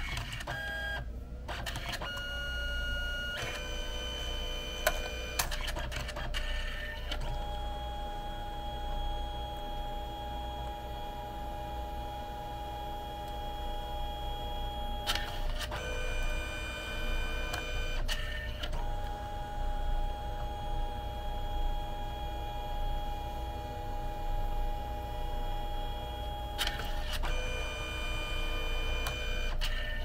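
Canon Selphy CP1300 dye-sublimation photo printer at work, its motors whining at steady pitches that switch every few seconds as the paper is fed back and forth through the print passes. A few clicks from the mechanism around the switches.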